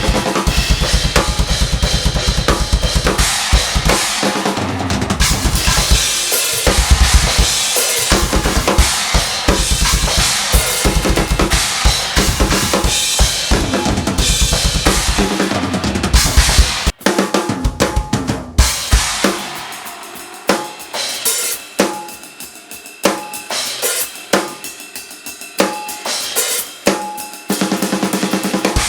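Love Custom drum kit with Meinl cymbals played at high speed: a blast beat built on Swiss Army triplets (flam, right, left), with fast bass drum under snare and cymbal hits. About 17 s in it breaks off; sparser snare and cymbal hits without bass drum follow, and the full blast returns near the end.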